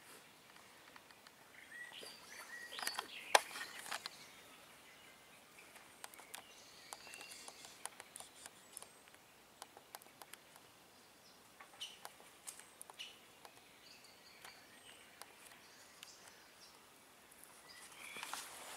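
Faint woodland ambience: scattered short bird chirps over sparse rustles and sharp clicks, with rustling steps building up near the end.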